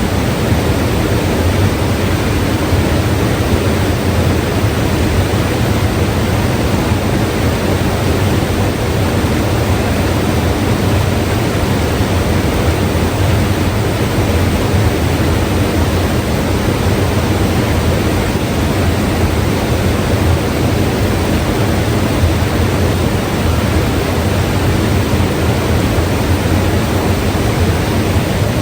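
A mountain river rushing steadily, a dense, even roar of running water with no breaks or changes.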